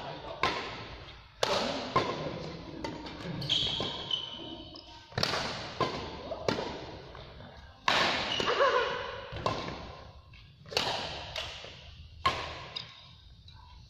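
Badminton rackets striking a shuttlecock during a rally: a series of sharp cracks about a second apart, each ringing out in the echo of a large gym hall, thinning out near the end.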